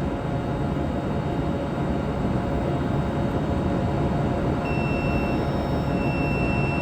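A steady rumbling background noise, over which, about two-thirds in, a digital multimeter's continuity beeper starts a high steady beep, breaks off briefly and comes back on, as its probes touch the motor winding leads. The beep with a reading under one ohm shows continuity at low resistance: the winding is intact.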